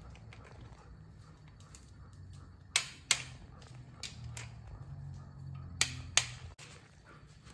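A click-type torque wrench tightening cylinder head bolts on an LS1 V8, giving sharp clicks in pairs about a third of a second apart, three times a second or so apart: each pair marks a bolt reaching the 30 Nm setting.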